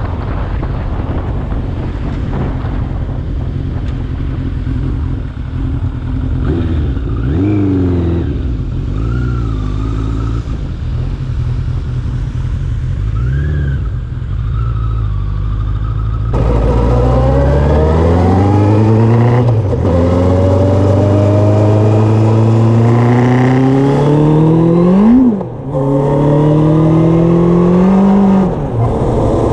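Suzuki GSX-R750 slabside's inline-four engine under way, revving up through the gears again and again, with the pitch falling away at each shift. About three quarters of the way through, the revs climb hard, then drop sharply as the throttle shuts. Wind rushes over the helmet-mounted camera.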